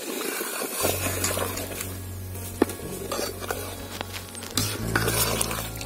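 A steel ladle stirring and scraping through boiling kodo millet biryani in a metal pot, with a sharp clink against the pot about two and a half seconds in. Background music comes in about a second in.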